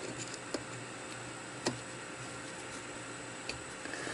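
Three light metal clicks from a screwdriver working a pinion retaining pin into the steel body of a small 3-jaw lathe chuck, over a steady low hum.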